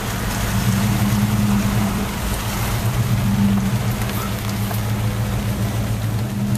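Dodge Durango's engine running at a steady low hum, heard from inside the cabin, over a constant hiss of road and rain noise.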